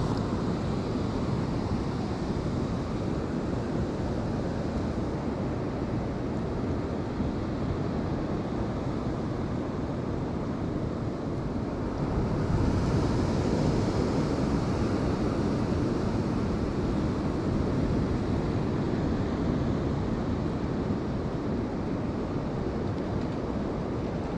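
Steady wash of ocean surf and wind on the microphone, swelling a little about halfway through.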